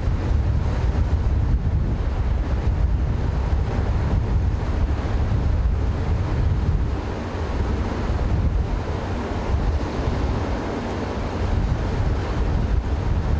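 Wind buffeting the microphone: a steady low rumble that wavers unevenly.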